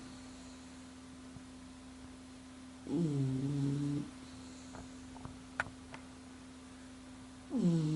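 Snoring: pitched snores about a second long, each dipping in pitch as it begins, one about three seconds in and another starting near the end, over a steady low hum. A few faint clicks fall between them.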